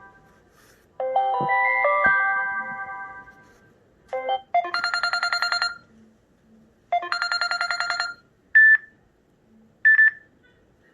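Samsung Galaxy J7 Star phone ringtones played one after another. First comes a short chiming melody, then a rapidly pulsing electronic ring in two bursts of about a second each, then two short single beeps.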